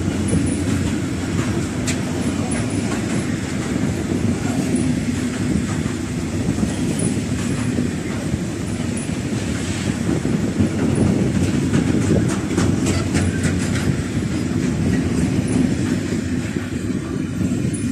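Freight train of covered hopper wagons rolling past close by: a steady rumble of steel wheels on rail, with clicks as the wheelsets cross rail joints.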